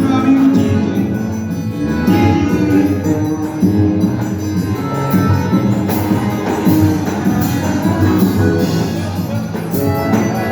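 Upbeat dance music with a steady beat; an instrumental stretch with no singing.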